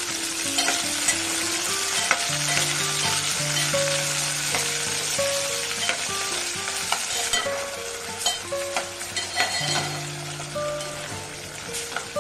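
Potato cubes and sliced onions sizzling as they fry in oil in an aluminium pot, stirred with a steel spoon that scrapes and clicks against the pot now and then. Background music plays underneath.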